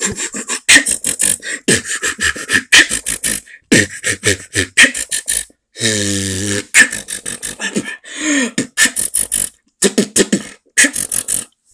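Solo vocal beatboxing: a fast run of mouth-made kick, snare and hi-hat sounds, broken by a few short pauses. About six seconds in comes a single held vocal note lasting under a second.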